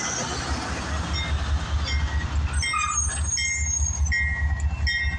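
CSX diesel freight locomotives running with a deep, pulsing rumble as the train moves slowly past, with short, high-pitched squeals from the wheels coming and going.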